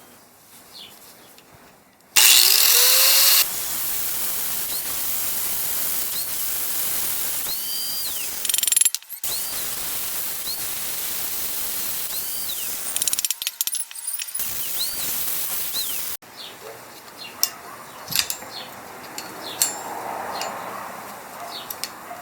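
Angle grinder with a cutoff disc starting up about two seconds in, spinning up with a rising whine, then cutting through a steel ear on a chromed Lincoln front spindle, briefly easing off twice. The grinder stops about sixteen seconds in, followed by a few light clicks and taps.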